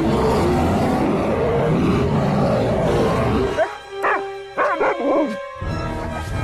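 Dramatic film score, then a husky dog barking several times in quick succession as the music drops out, about four seconds in.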